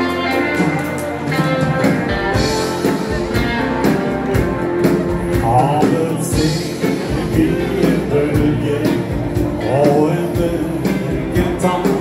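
Live dance band playing the intro of a song: a drum kit keeps a steady beat under electric guitar, bass guitar and keyboard.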